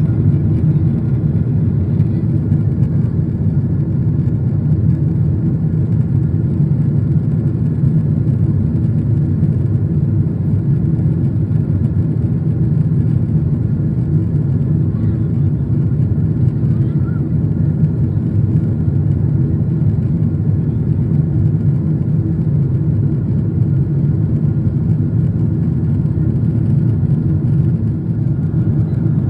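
Jet airliner cabin noise in cruise flight: a steady low rumble of engines and rushing air heard from inside the cabin, unchanging throughout.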